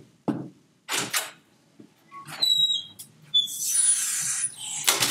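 A few short scuffing noises, then a brief high squeak about two and a half seconds in, followed by about a second of hiss and another scuff near the end.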